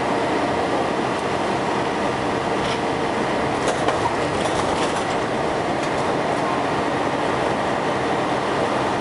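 Scania L113CRL bus with a ZF automatic gearbox, heard from inside the passenger saloon while under way: steady engine and drivetrain running with road noise and rattling of the body and fittings, with a few sharper rattles about four seconds in.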